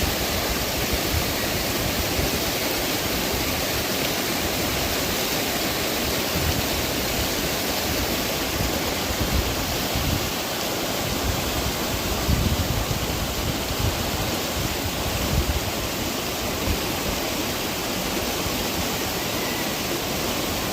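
Rushing river water: a steady, full hiss of fast-flowing water, with occasional low rumbling surges.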